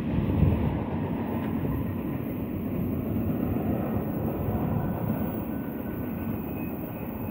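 Low rumble of a BNSF intermodal freight train moving away, fading slowly.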